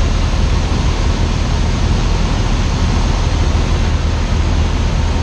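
Cessna 172 Skyhawk's piston engine and propeller droning steadily with airflow noise in the cabin, in level flight on the downwind leg.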